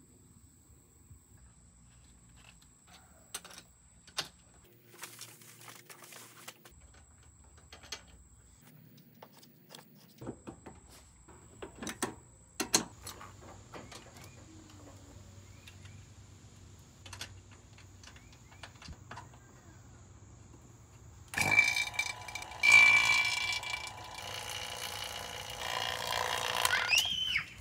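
Scattered light clicks and taps of hand work on fittings, then an HVAC vacuum pump hooked through manifold gauges to a mini-split's service valves starts and runs loudly for about six seconds, evacuating the refrigerant line set, ending in a quick rising whine.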